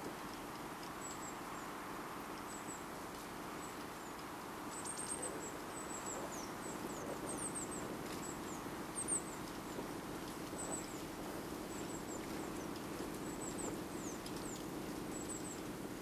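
Outdoor ambience of steady wind rushing, with small birds calling in many short, very high, thin chirps, some sliding downward, throughout. A single brief knock sounds about nine seconds in.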